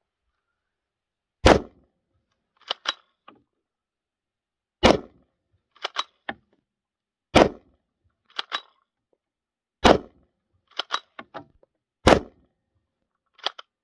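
Five shots from a Renegade Mark II straight-pull rifle in .223 with a 12.5-inch barrel, two to three and a half seconds apart. After each shot come two to four quick metallic clicks as the straight-pull bolt is worked by hand to eject the spent case and chamber the next round.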